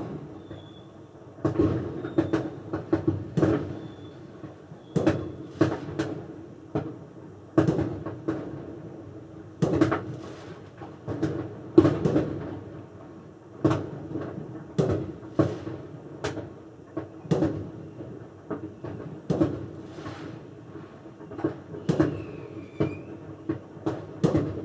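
Repeated, irregular knocking and clattering, often several strikes in quick succession, with short pauses between clusters.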